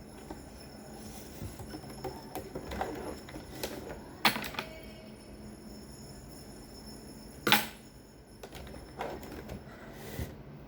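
Scattered clicks and knocks from handling the garment and tools at the sewing table, with two sharp knocks about four and seven and a half seconds in, the first leaving a brief metallic ring.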